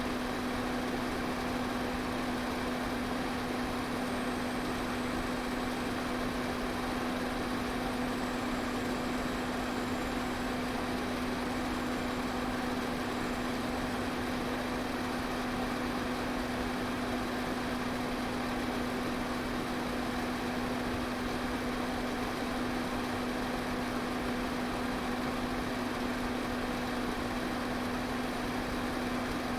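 Electric fan running steadily: an even rush of air over a constant motor hum.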